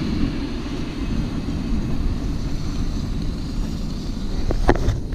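Wind buffeting on the camera microphone, a steady low rumble with no clear engine note, with two short clicks near the end.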